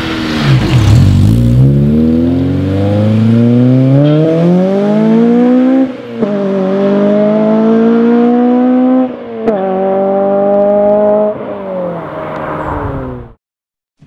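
Honda RSX's four-cylinder engine accelerating hard through the gears: the revs climb steadily, dip sharply at two upshifts about six and nine seconds in, then fall away as the throttle is lifted. The sound cuts off abruptly near the end.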